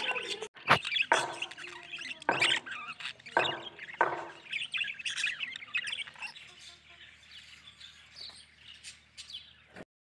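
Lutino exhibition budgerigars chattering and chirping, with several sharp, loud calls in the first few seconds. The twittering grows fainter in the second half and cuts off just before the end.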